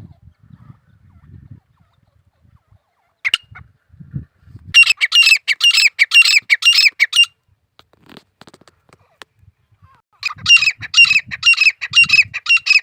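Grey francolin calling: a short single note, then two loud bouts of rapid, harsh repeated notes, each lasting about two and a half seconds, the second starting about ten seconds in.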